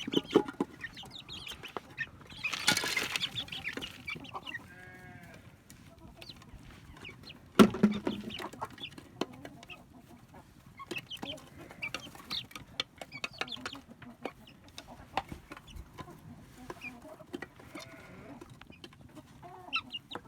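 Chickens clucking and chirping, with a rustling burst about three seconds in and a short pitched call about five seconds in. A sharp knock about eight seconds in is the loudest sound.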